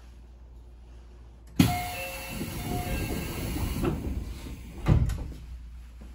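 A train's sliding passenger doors closing: a sudden rush of air with short beeping tones sounding twice, then a thud as the doors shut about five seconds in.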